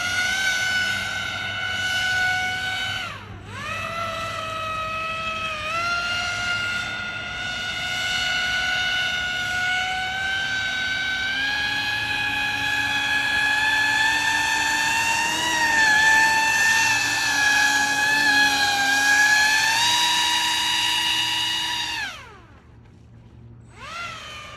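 Pro Boat AeroTrooper 25-inch RC airboat's brushless electric motor and air propeller running at full throttle: a steady high whine that dips briefly about three seconds in and climbs a little in pitch past the middle. The motor cuts off about 22 seconds in and spins up again briefly near the end.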